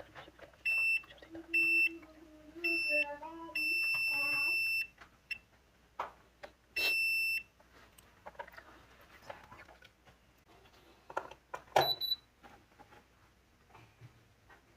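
Electronic beeping, all at one high pitch: five beeps in the first seven seconds, the fourth lasting about a second and the rest short. A sharp click follows about 12 s in.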